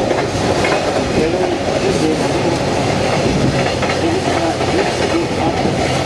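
Steady running noise heard inside the cabin of the KiHa 205 diesel railcar as it travels, with a few wheel clicks over rail joints.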